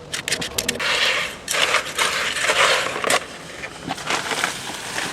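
Concrete being mixed: gritty scraping and crunching strokes, after a quick run of clicks at the start.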